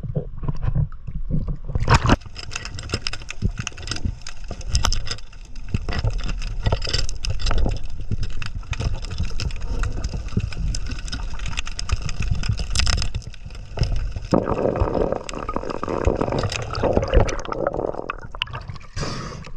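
Water gurgling and sloshing around the microphone, with many scattered knocks and clicks.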